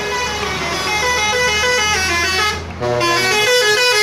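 Bus 'telolet' musical air horn playing a melody: a quick run of short pitched notes stepping up and down, broken by a brief pause about two and a half seconds in.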